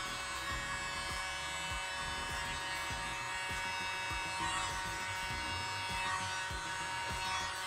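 Small handheld electric air blower with a nozzle running steadily, a motor whine that holds one pitch, blowing wet acrylic paint outward into a bloom on a coaster.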